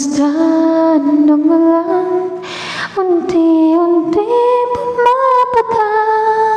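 A woman singing solo into a microphone, holding long drawn-out notes with no clear words, with an audible breath about two and a half seconds in and the melody stepping up in pitch partway through.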